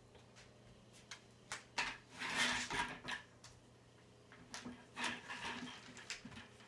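A dog moving about on a hard floor: scattered clicks and knocks with two spells of scraping and rubbing, about two seconds in and again around five seconds in.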